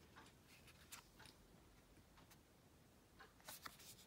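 Near silence with a few faint, brief clicks of tarot cards being handled and turned over one at a time, a little louder near the end.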